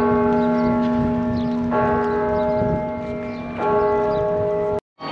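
Large church bell tolling: three strokes about two seconds apart, each ringing on over a steady low hum. The ringing cuts off suddenly near the end.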